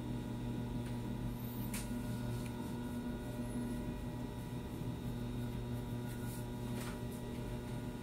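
Steady low electrical hum, with two faint ticks about two seconds in and near the end.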